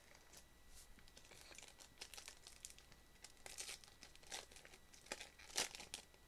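Foil wrapper of a Japanese Pokémon card booster pack crinkling as it is handled and torn open: an irregular scatter of short, faint crackles that get louder in the second half.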